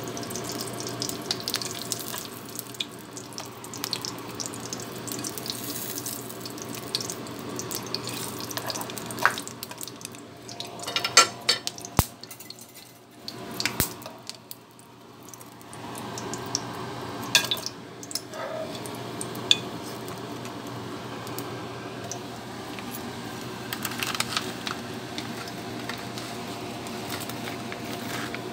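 Nurungji (scorched rice) sheets frying in a shallow layer of hot oil in a pan, sizzling and crackling steadily. A few sharp knocks of chopsticks or the pan come near the middle.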